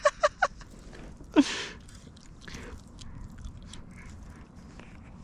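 Fishing reel clicking and winding while a hooked fish is played, with a few short, sharp sounds near the start and a brief falling sound about a second and a half in.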